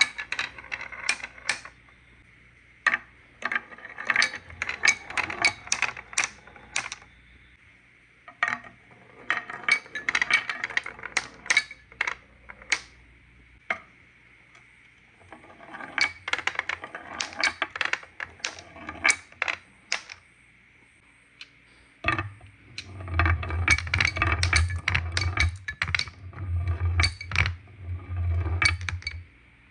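Marbles clattering down a wooden marble run in several bursts of rapid clicks with short pauses between. A low rumble runs under the clicks for the last several seconds.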